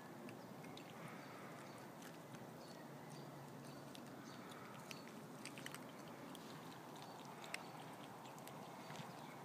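Two kittens crunching and chewing dry kitten kibble: faint, irregular little crunching clicks over a low steady hiss.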